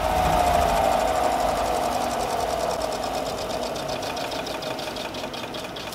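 Homemade lapidary sanding and polishing machine coasting down after being switched off: its motor whine falls slowly in pitch and the running sound fades, with a fine rhythmic ticking from the spinning wheel.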